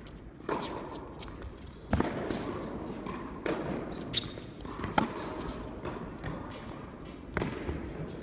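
Tennis rally: sharp pops of racket strings hitting the ball and the ball bouncing on the court, about half a dozen knocks spaced a second or so apart, with a slight echo of a large indoor hall.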